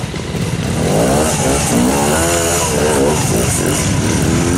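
Classic trials motorcycle engine revving up and down several times as the bike climbs out of a stream section, the pitch rising and falling with each twist of the throttle.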